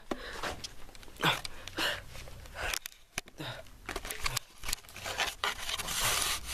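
Irregular rustling and scraping of cloth and a handheld camera being moved about, with scattered short clicks and bumps.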